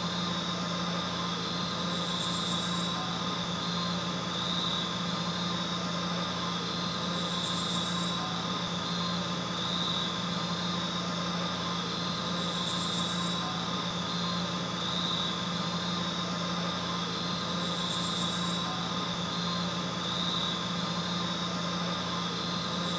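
A steady electrical or mechanical hum with hiss, holding several fixed tones. A short high-pitched chirp sounds about every five seconds.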